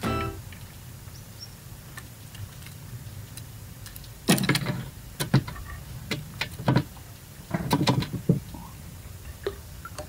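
Sharp knocks and clatter of fishing gear in a wooden boat while a giant freshwater prawn is being landed. There is a burst of knocks about four seconds in, single clicks after it, and a second burst about eight seconds in.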